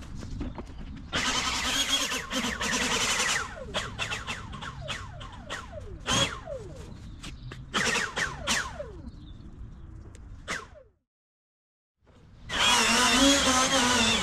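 Handheld leaf blower fired in short bursts, its motor whine falling in pitch each time the trigger is let go. After a short gap near the end it starts up again and runs steadily at full blow.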